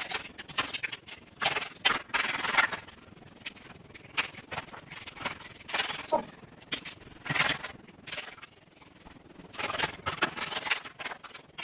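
Gingerbread house being broken apart by hand: irregular bursts of cracking and crunching gingerbread, with pieces rubbing and scraping against each other and the baking tray.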